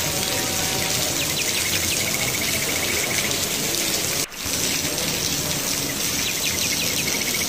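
Heavy rain falling steadily on wet pavement, a loud, even hiss. A small bird calls twice over it, each time a few quick falling chirps followed by a short trill. The sound briefly drops out about four seconds in.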